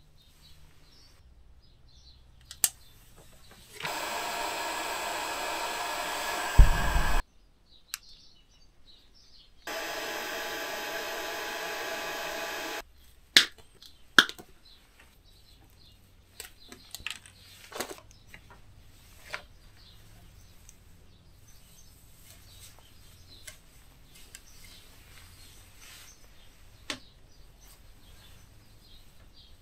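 A hand-held electric tool runs twice, about three seconds each time, a steady hiss with a hum in it; a low thump comes as the first run ends. Sharp clicks of side cutters snipping wire come just before and just after, then light ticks of wires being handled.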